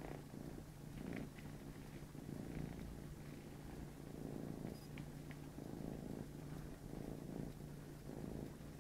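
Domestic cat purring steadily close up, the purr swelling and fading with its breathing about once a second, with a few faint clicks.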